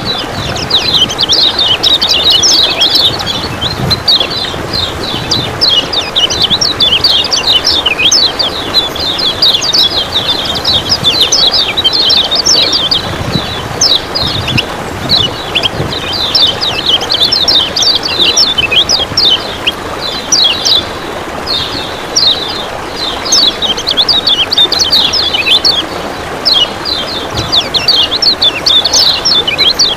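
Kecial kuning (yellow white-eye) chirping in fast, continuous strings of sharp 'ciak ciak' calls, over a steady rush of running water.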